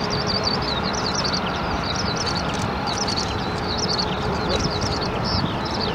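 Boeing 777-200 jet engines running on the runway, a steady rushing roar. Many small birds chirp rapidly over it.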